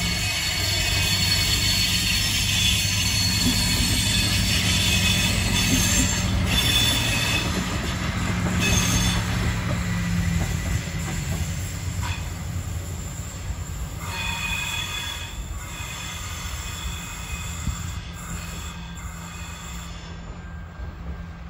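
Adelaide Metro 3100-class diesel railcar passing close by, its engine running low and steady under high-pitched wheel squeal. The squeal is loudest in the first half, and the sound fades as the train draws away.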